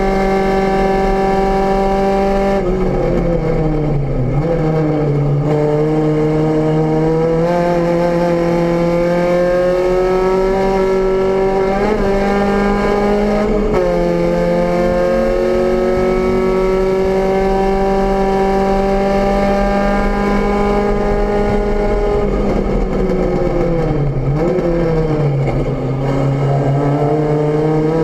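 VW Rabbit GTI race car's four-cylinder engine heard from inside the cabin, run hard through a lap. Its pitch falls under braking with downshifts about three seconds in and again around twenty-three seconds, climbs steadily on the straights, and drops sharply twice at upshifts around twelve and fourteen seconds.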